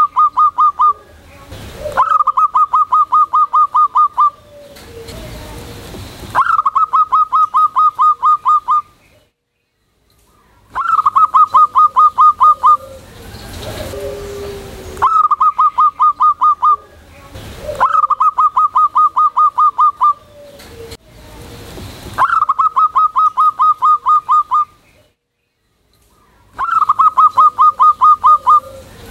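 Zebra dove (perkutut) singing loudly in full song. It repeats about eight phrases, each a quick run of around ten staccato coo notes lasting about two seconds, with short pauses between them. A few phrases open with a lower note.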